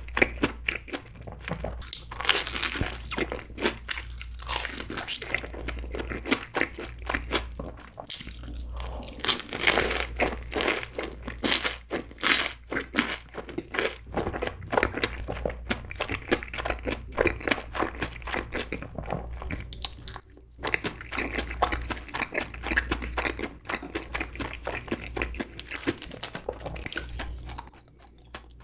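Chewing of crispy fried corn dogs in cheddar cheese sauce, heard close up: a dense, steady crunching of the breaded batter, with a brief pause about twenty seconds in.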